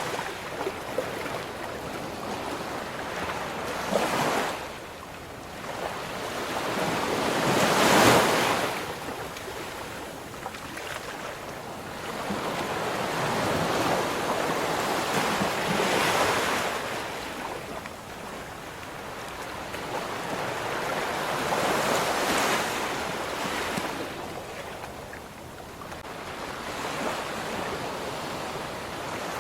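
Ocean waves breaking and washing up on a shore, swelling and falling away every few seconds, with the loudest break about eight seconds in.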